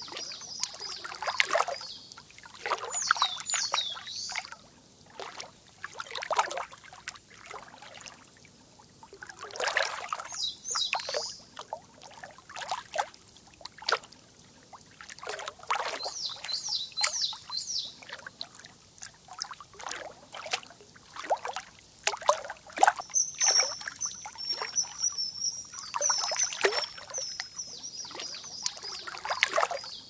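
Water trickling and splashing in irregular, uneven spurts, with a songbird calling high over it a few times: clusters of quick descending whistles and a held high trill.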